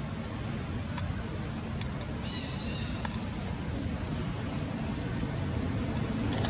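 Outdoor ambience: a steady low rumble, with a few faint high chirps around two to three seconds in and a short rising whistle about four seconds in, plus a few faint clicks.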